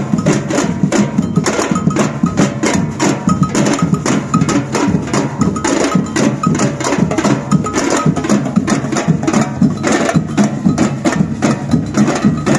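Batucada percussion band playing loud, fast samba drumming: deep drums under a quick, dense beat, with a cowbell striking a high note over it.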